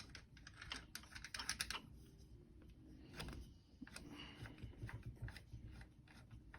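Faint, irregular clicking and tapping of bow vise parts being handled as a clamp knob is threaded on and finger-tightened, with a flurry of clicks in the first two seconds.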